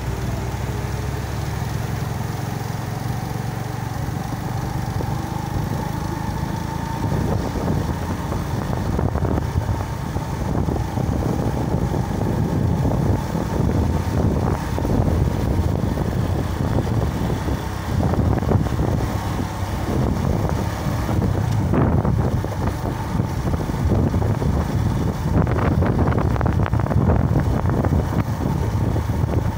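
Motor vehicle engine and road noise while driving close behind a sugarcane truck: a steady low rumble that turns rougher and a little louder from about seven seconds in.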